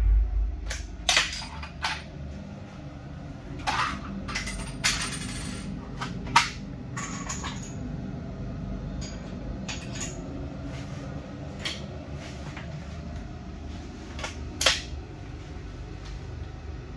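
Bolt-action .308 Win hunting rifle handled between shots: the echo of the last shot dies away at the start, then sharp metallic clicks and clinks of the bolt and metal parts, scattered irregularly, with a few louder ones around five and six seconds in and near the end.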